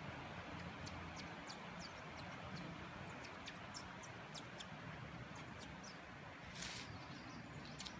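Quiet outdoor ambience with many short, very high chirps or ticks scattered irregularly, and a brief rustle about two-thirds of the way in.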